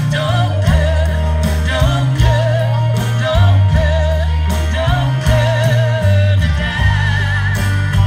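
A folk band playing live through an outdoor PA, heard from the audience: a singer holding notes with a wavering vibrato over strummed guitar and a bass line that changes notes every second or so.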